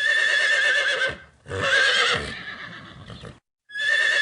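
A horse whinnying: three neighs in a row with a shaky, wavering pitch, the middle one the longest and trailing off, the third starting near the end.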